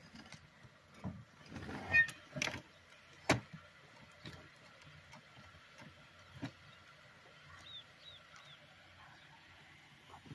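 Fabric recliner being tipped and pushed by hand, its metal reclining mechanism creaking and clunking as the chair is checked for a break. Several knocks come in the first few seconds, the sharpest about three seconds in, with a lighter one later.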